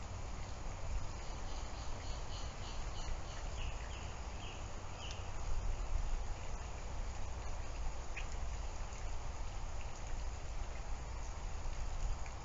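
Steady background noise with a low hum, and a quick run of faint, high, short chirps about two to five seconds in, with a few single chirps later.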